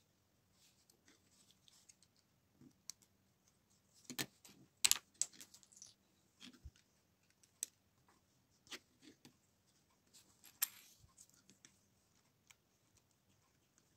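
Plastic LEGO bricks clicking and clattering as they are handled and pressed together, in scattered sharp clicks, loudest in a cluster about four to six seconds in and again near eleven seconds.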